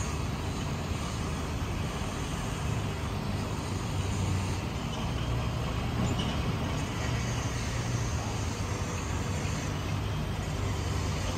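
Steady low rumble of distant road traffic, unbroken and without distinct events.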